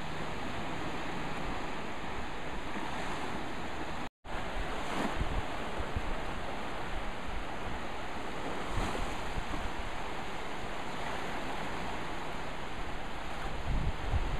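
Small sea waves breaking and washing over a sandy shore, swelling every few seconds, with wind buffeting the microphone in low thumps. The sound cuts out to silence for a moment about four seconds in.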